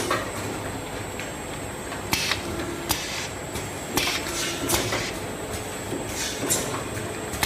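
Automatic sauce bottle filling and capping line running. Sharp clacks and short air-like hisses come in pairs about every two seconds over a steady machine hum.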